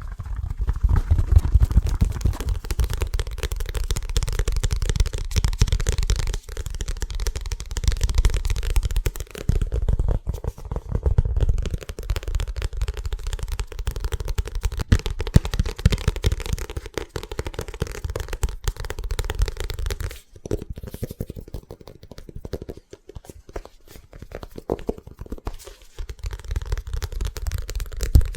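Fast, aggressive fingertip tapping on an object held right at the microphone: a dense stream of strikes with a heavy low thud. About two-thirds of the way through it thins out to lighter, sparser taps for several seconds, then picks up again.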